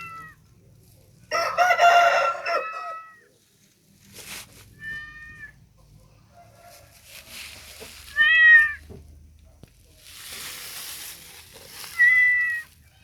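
A cat meowing repeatedly, about five short arching calls. The loudest come about a second and a half in, at about eight seconds and near the end, with a soft hissing noise between some of the calls.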